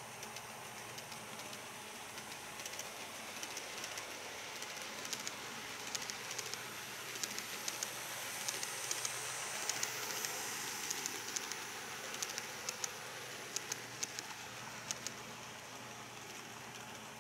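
KATO N-gauge Tokyu 7000 series model train running past on its track. A soft rolling hiss swells as it approaches and fades as it leaves, over a run of light clicks from the wheels crossing the rail joints.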